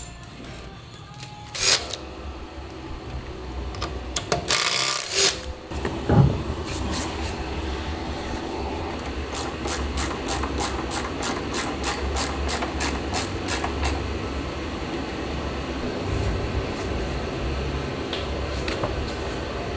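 Hand tools at work on body-panel fasteners: scattered knocks, a brief whirring burst about five seconds in, then a run of quick clicks about three a second, over a steady low hum.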